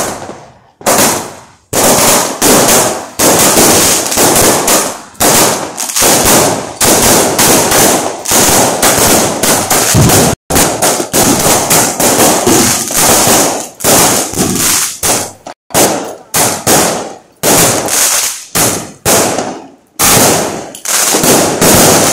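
Fireworks going off in a near-continuous barrage of loud bangs, several a second, as shells burst overhead.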